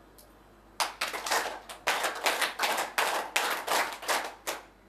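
Audience of seated people clapping together on cue. The claps start about a second in, come in quick runs, and stop near the end, with a few claps from the back falling late.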